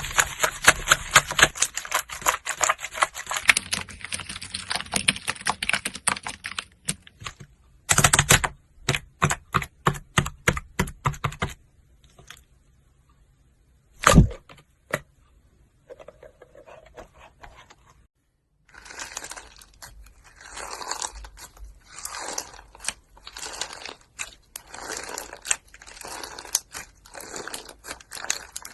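Slime being squeezed and pressed by hand: a long run of rapid sticky clicks and pops, a single loud thud about fourteen seconds in, then a rhythmic crinkling, crackling texture through the last third.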